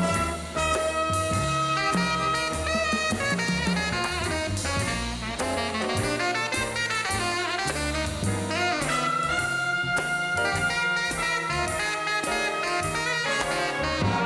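A jazz big band playing an ensemble passage: saxophones and brass over a bass line and drum kit.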